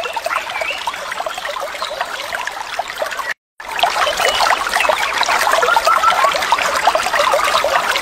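Stream water running over rocks: a dense, steady trickling and splashing. It cuts out abruptly for a moment about three and a half seconds in, then resumes a little louder as flowing river water.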